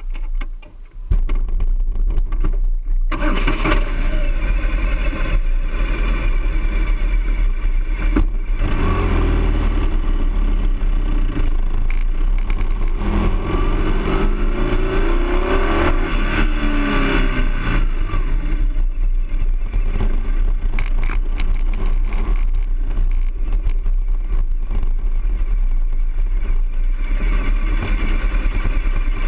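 BMW R1200GS boxer-twin engine coming in suddenly about a second in, then running and revving as the motorcycle rides along, picked up by a camera mounted on the bike.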